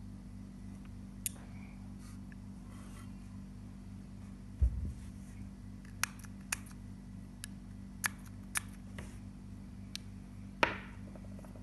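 Scattered small sharp clicks and ticks over a steady low hum, with a dull thump about four and a half seconds in and a short swish near the end.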